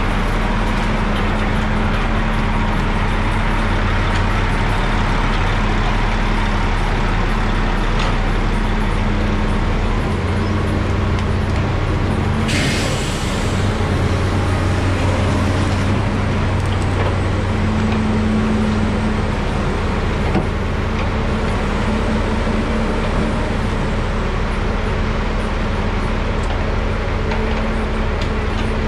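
Heavy diesel engines running steadily: a loaded log truck and knuckleboom log loaders working. A short hiss of air cuts in briefly about twelve seconds in.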